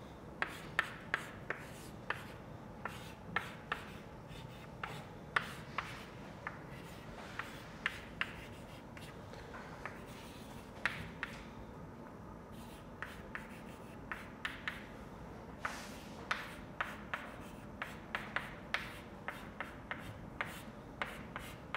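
Chalk writing on a chalkboard: an irregular run of quiet short taps and scratches as the strokes are made, sometimes bunched several together.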